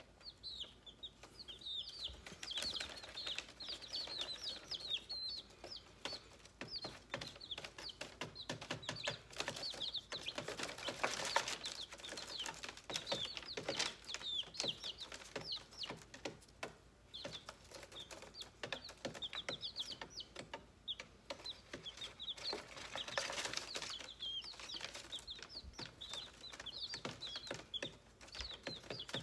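A group of baby chicks peeping continuously, a stream of short, high, falling cheeps several a second, over light scratching and rustling on the newspaper bedding.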